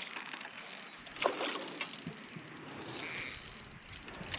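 Fishing reel ratcheting and clicking while a hooked, hard-fighting trout is played on the line.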